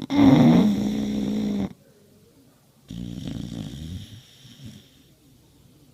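A sleeping pet snoring: two long snores, each about one and a half to two seconds, the first loud with a buzzing, pitched tone and the second quieter, starting about three seconds in.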